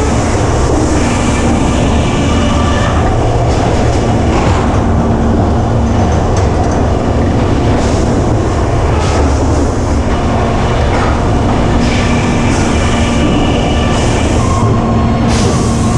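Sawmill carriage running on its rails while the saw cuts: loud, steady machinery noise with a rattling like rail wheels and a low hum that drops out and comes back several times.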